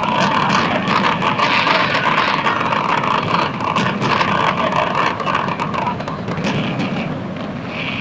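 Fireworks crackling and popping densely, many small reports overlapping, easing slightly after about five seconds, over a steady low rumble.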